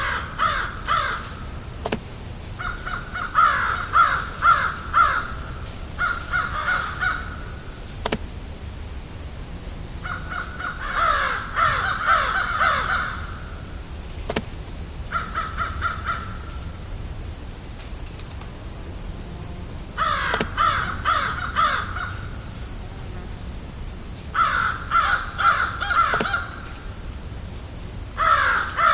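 Crows cawing in bouts of several quick, harsh caws, with pauses of a few seconds between bouts, over a steady high hiss.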